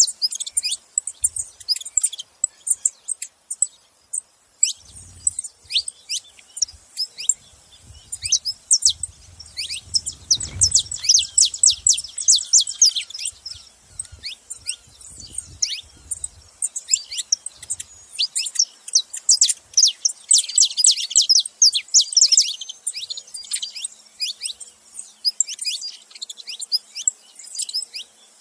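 Saffron finch calling: long runs of quick, sharp, high chips that sweep downward, coming in bursts with short pauses.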